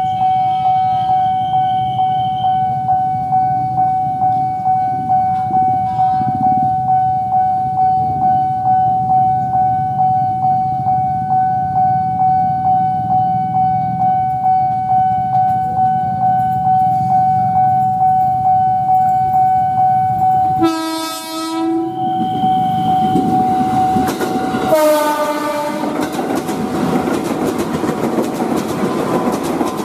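Level-crossing alarm bell ringing with a steady electronic ding, a little over two a second. Around 21 s and again around 25 s an electric commuter train sounds short horn blasts, and then the train runs past with wheel noise and clickety-clack.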